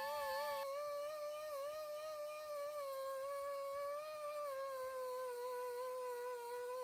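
Electric grinder spinning a fine fiber abrasive wheel against an aluminium casing, a steady whine whose pitch wavers and sags slightly under light pressure.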